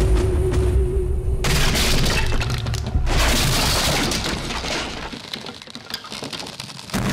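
Window glass and wooden frame shattering as a man bursts out through an upstairs window. A first crash comes about one and a half seconds in, and a bigger one about three seconds in, dying away a couple of seconds later over a held note of film score.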